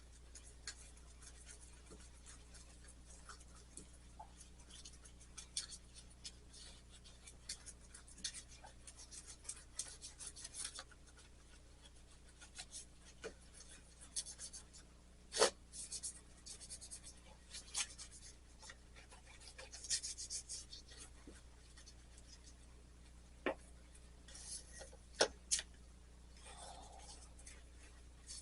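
Toothbrush scrubbing black patina onto soldered seams of stained glass: bristles scratching over the solder and glass in irregular bursts of strokes, with a few sharp taps of the piece or brush, the loudest about halfway through.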